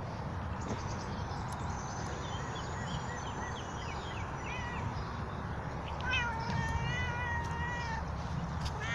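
A cat meowing: one long, drawn-out meow about six seconds in, lasting around two seconds, and another starting near the end.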